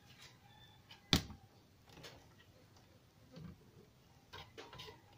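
Handling noise from a CRT TV's main circuit board being lifted and stood upright: one sharp click about a second in, then a few softer taps and knocks.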